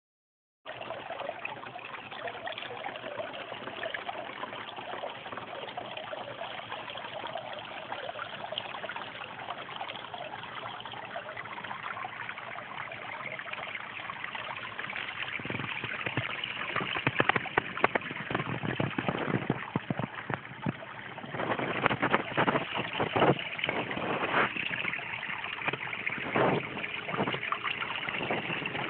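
Water from a solar pond pump's outlet pipe pouring into a small rock basin, a steady trickling splash. From about halfway through, louder irregular clicks and knocks come in over the water.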